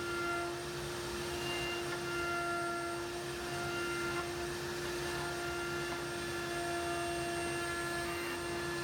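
Table-mounted Triton 3¼ horsepower router running at a steady pitch while its pattern bit trims a wooden blank to a template, with fainter higher tones coming and going over the steady note.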